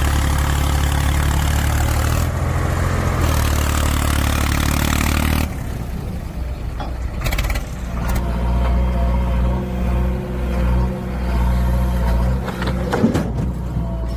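A heavy machine's engine running, loud and rough for about the first five seconds, then dropping to a quieter, steadier run.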